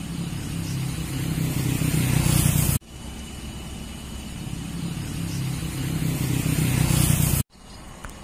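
A vehicle engine running on the move, with a rush of wind noise, growing louder over each stretch. The sound breaks off abruptly about three seconds in and again near the end, then starts again quieter each time.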